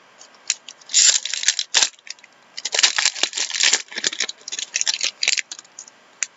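Crinkly rustling in short bursts as trading-card pack wrappers and cards are handled and opened, with a couple of sharp clicks.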